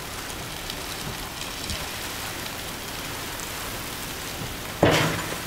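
Sheet-metal seesaw ramp tipping under a Jeep and slamming down with one loud metallic bang near the end, ringing briefly. A steady hiss of background noise runs underneath.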